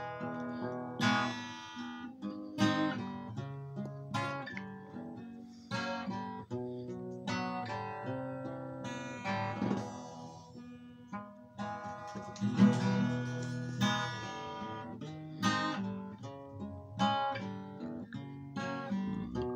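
Acoustic guitar strumming chords with no singing, a strong accented strum about every second and a half and the chords ringing between.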